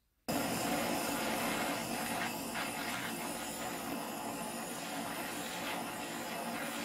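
Handheld gas torch burning with a steady hiss as its blue flame heats the steel blade of pruning shears. It starts suddenly a moment in and holds at an even level.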